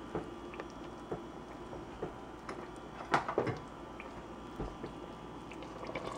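Quiet room tone with about half a dozen faint, scattered light taps and clicks, the sharpest about three seconds in.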